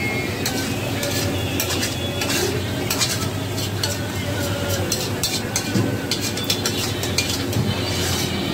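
A metal ladle scraping and clinking repeatedly against a large iron kadai as crab masala is scooped out onto a steel plate, over a steady sizzle from the hot pan.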